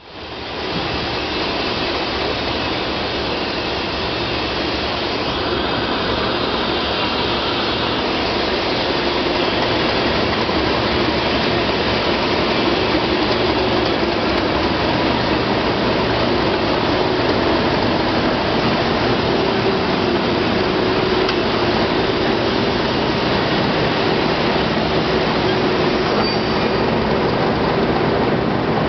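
Pair of Class 37 diesel locomotives with English Electric V12 engines running steadily as they draw slowly past with a train of coaches, their engine note with a steady hum.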